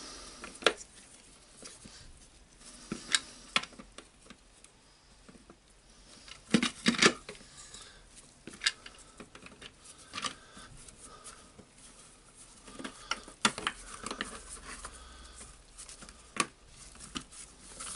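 Scattered light clicks and knocks of the plastic housing of a Makita DGA452 angle grinder being handled, fitted and pressed closed around the motor, with a few louder knocks among them.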